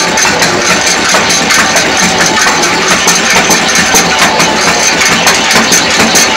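Automatic naswar tikki machine running, its motor-driven rollers and belt pressing snuff paste into round cakes with a fast, even clatter of several beats a second.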